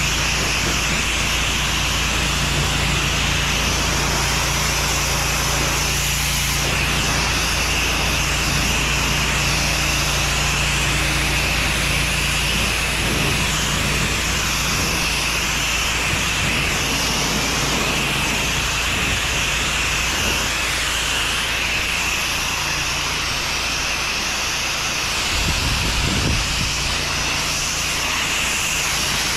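An 8 gpm pressure washer spraying steadily from a long wand: a continuous high-pressure water hiss striking the deck lattice and vinyl siding, with the machine's steady hum underneath.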